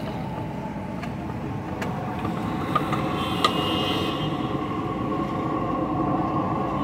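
A steady low roar of roadside street-stall ambience, with a few sharp taps of a wooden spatula against a nonstick frying pan as chicken is stirred.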